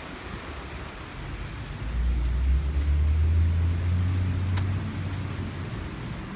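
Low engine rumble of a passing motor vehicle, swelling about two seconds in and fading away a few seconds later over steady outdoor noise.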